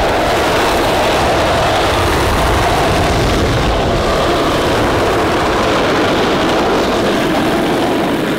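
Skateboard wheels rolling over asphalt, a loud steady rumble with no breaks.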